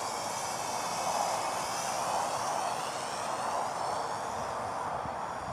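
DM009 quadcopter's motors and propellers buzzing in flight, a high whine that rises and falls in pitch as the quad manoeuvres and passes.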